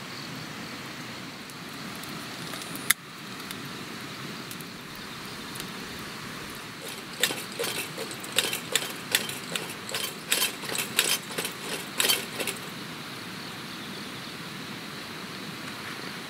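Irregular sharp metallic clicks and clinks, a single one about three seconds in, then a quick run of them for about five seconds from the middle on, over a steady outdoor hiss.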